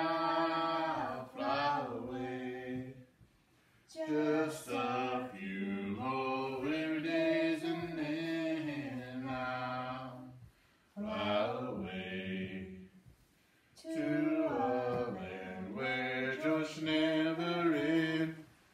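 A woman singing a hymn into a microphone with the congregation singing along, unaccompanied, in long held phrases with short breaks between them.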